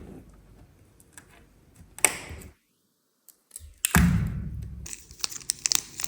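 Small hard clicks and taps of objects being handled, with a sharper knock about two seconds in and a louder thud a little before four seconds, followed by a run of quick clicks.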